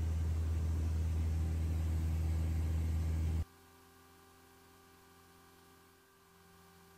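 Inside the cabin of a Mooney M20E, its four-cylinder Lycoming IO-360 engine and propeller make a steady low drone in cruise flight. About three and a half seconds in, the drone cuts out abruptly, leaving only a faint steady hum.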